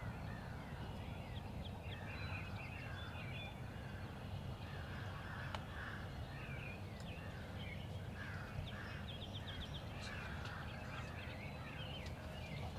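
A flock of birds calling steadily: many short, harsh, downward-sliding calls overlapping, several a second, with brief runs of quick high ticks, over a low steady rumble.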